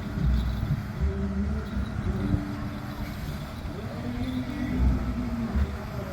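Fire engine's engine running with a rough, uneven rumble, while a Christmas song carries on faintly in held notes from its loudspeaker.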